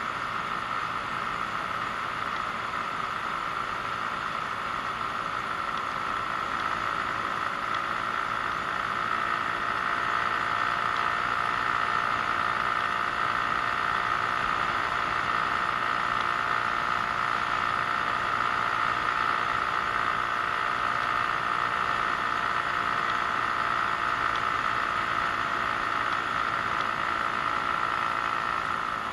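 Genuine Buddy 125 scooter's small four-stroke single-cylinder engine running steadily at cruising speed, with wind and road noise over it. It gets a little louder about ten seconds in.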